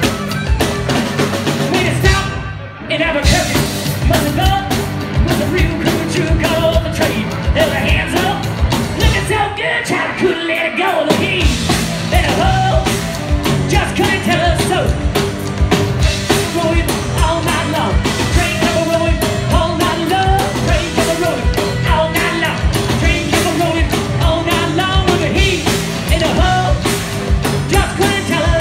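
Live rock band playing hard-driving rock and roll: a singer over electric guitar, bass guitar and drum kit. The band breaks off for a moment about two and a half seconds in, and the bass and drums drop out briefly around ten seconds.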